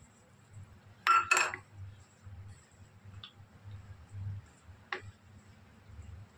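Two quick sharp clinks of kitchenware about a second in, then a couple of light knocks as a wooden spoon stirs thick marinade on a plate.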